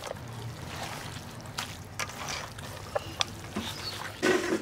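Raw chicken pieces being kneaded by hand with a spice coating in an enamel bowl: irregular wet squelches and slaps, louder and closer together near the end.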